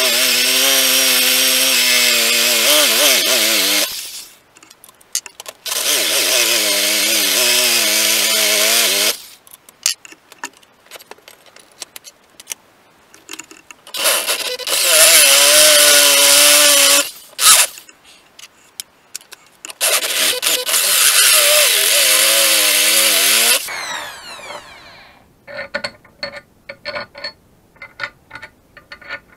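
Cordless drill with a step drill bit boring holes through a metal plate clamped in a vise, in four bursts of about three to four seconds each with a wavering whine as the bit cuts. Near the end the drill winds down with a falling pitch, followed by a run of light clicks and knocks.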